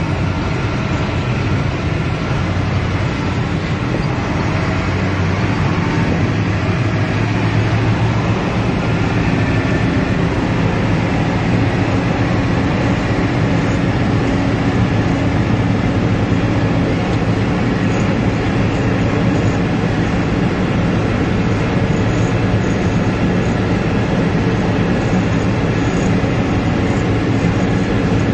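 Steady engine drone and road noise of a moving vehicle, heard from inside the cab while driving at a constant speed.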